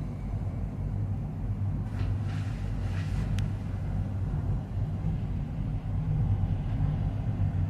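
Steady low rumble inside a moving Maokong gondola cabin as it rides along its cable, with a couple of faint ticks about two to three seconds in.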